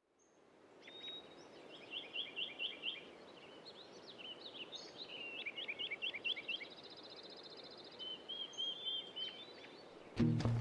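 Birds singing over a steady background hiss, fading in at the start: series of quick repeated chirps and trills, a short buzzy rattle about six seconds in, and clear whistles. Music comes in loudly just before the end.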